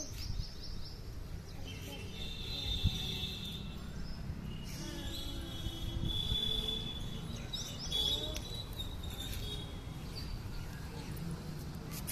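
Birds chirping: a quick run of high chirps at the very start, then three drawn-out high trills, over a steady low background rumble.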